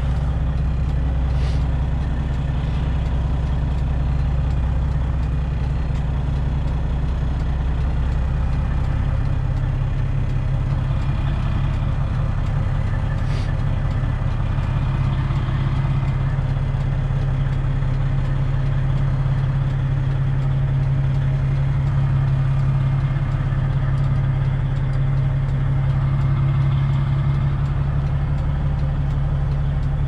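Freightliner Classic XL semi truck's Detroit Diesel 12.7-litre engine running at low revs while the truck creeps around a lot, a steady deep drone whose tone shifts about nine seconds in.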